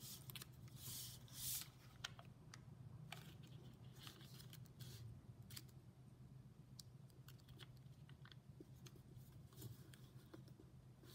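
Faint crackles and rustles of square origami paper being folded and creased by hand, with a brief swish of the sheet about a second in, over a faint steady low hum.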